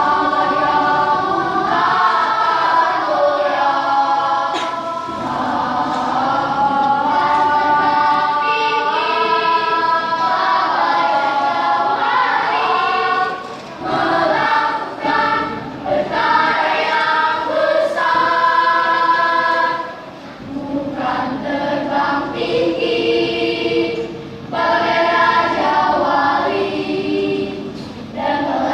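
Elementary-school children's choir singing in parts, with brief pauses between phrases.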